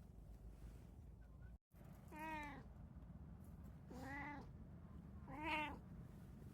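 Domestic cat meowing three times: short calls about a second and a half apart, the last one the loudest.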